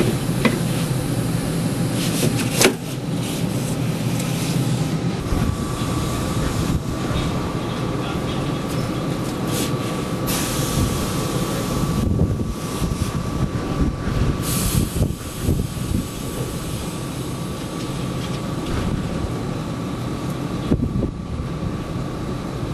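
Tram running on its track, a steady mechanical rumble. A thin, steady high whine joins it about five seconds in, and a few sharp clicks and knocks come over it, the loudest about two and a half seconds in.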